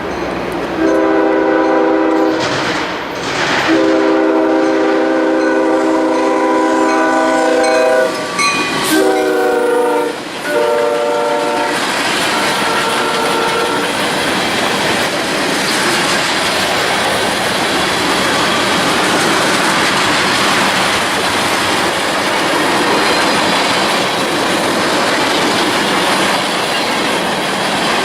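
Locomotive air horn sounding a chord in four blasts, the second one long, then the train passing close with a loud, steady rush and clatter of wheels on rail.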